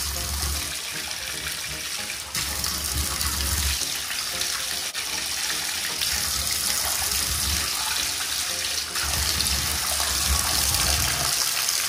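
Bathtub tap running steadily, a stream of water splashing into the tub as a hand is held under it to test the temperature.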